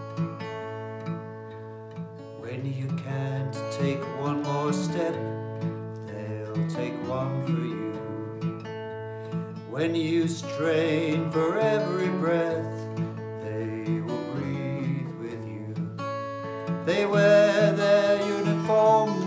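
Instrumental break of a gentle song: strummed acoustic guitar under sustained chords, with a wavering melody line over it that comes in about two seconds in. The music swells near the end.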